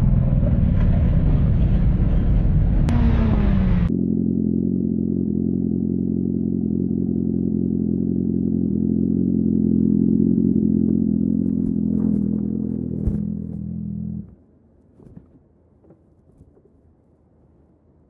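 For about four seconds, a Harley-Davidson cruiser's engine and heavy wind noise while riding. Then a Suzuki GSX-R1000R's inline-four engine idles steadily. About thirteen seconds in there is a thump, and a moment later the engine sound cuts out suddenly, leaving only faint clicks and knocks.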